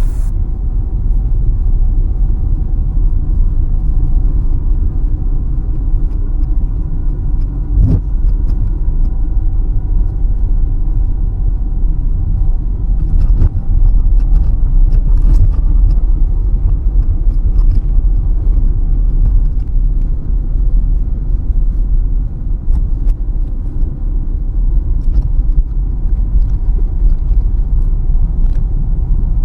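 Steady low road and engine rumble heard from inside a moving car's cabin, with a few faint light ticks and a single sharper click about eight seconds in.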